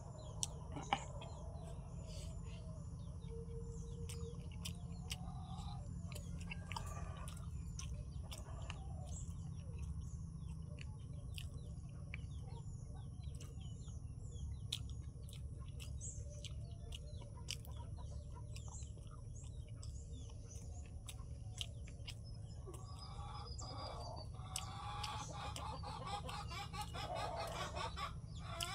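Chickens clucking, with small birds chirping, over a steady low hum. Short clicks and smacks of someone chewing food eaten by hand run throughout.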